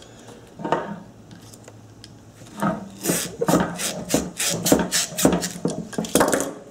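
Old rubber hose being twisted and pried off a metal transmission cooler line with pliers on its hose clamp: one scrape, then from about halfway a quick run of short scraping rubs of rubber and pliers against the metal pipe.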